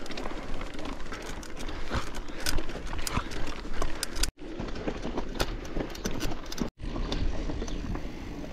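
Mountain bike climbing a rocky trail of loose stones: tyres crunching over gravel with many quick clicks and rattles from the bike, over low wind rumble on the microphone. The sound cuts out suddenly twice, about four seconds in and again near seven.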